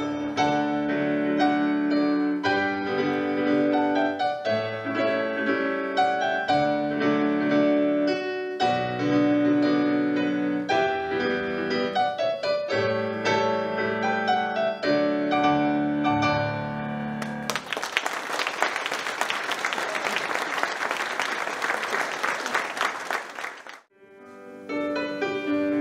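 Piano playing a slow, chordal instrumental close to a song, note after note sustained. About two-thirds of the way through, the audience breaks into applause for several seconds. After a brief drop, piano playing starts again near the end.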